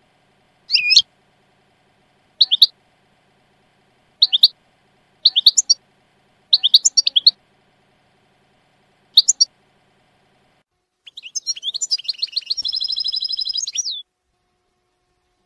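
European goldfinch singing in the style that keepers call the Shami (Levantine) dialect: short, separate high chirping notes every second or two, then, about eleven seconds in, a fast buzzy trill of rapidly repeated notes lasting about three seconds.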